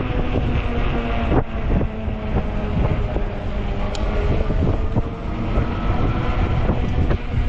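Fat-tire e-bike riding through strong gusty wind: heavy wind rumble on the microphone over a steady hum from the bike, with a few sharp knocks from bumps along the way.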